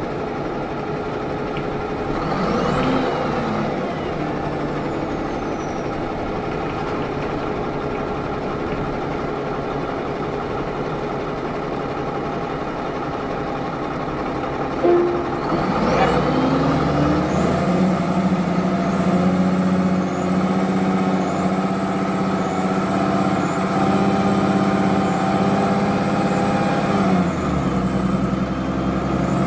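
Cummins ISM 10.8 L diesel engine of a 2005 Orion V transit bus running loud on the move. About halfway through the engine note grows louder and a high whistle rises and then holds steady, as the bus pulls away under power.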